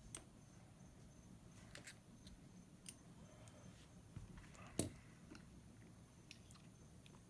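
Near silence broken by a few faint, scattered clicks and light taps of small parts being handled during reassembly, the loudest about five seconds in.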